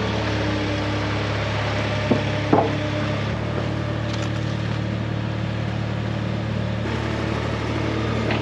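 An engine idling steadily, with two short knocks about two seconds in and a slight change in its note a little after three seconds.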